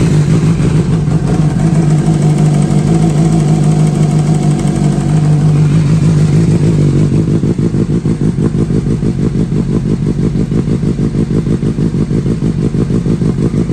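2017 Suzuki GSX-S750's inline-four engine idling through an aftermarket slip-on exhaust just after starting. The fast idle drops to a lower, pulsing idle about six or seven seconds in, with a nice lump to it.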